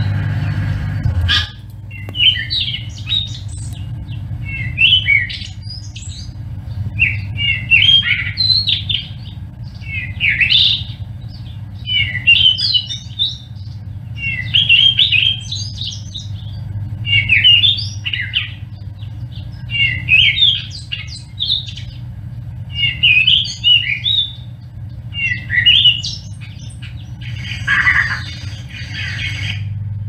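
Cape robin-chat singing: a short, warbled phrase repeated about a dozen times, roughly every two seconds, over a steady low hum.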